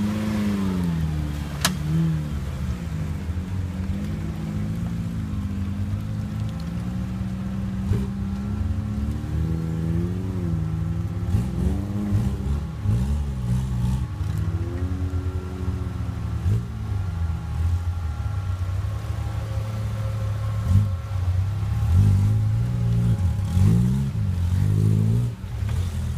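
Off-road 4x4 engines revving up and down as they crawl through deep mud, the pitch rising and falling again and again. A single sharp knock about two seconds in.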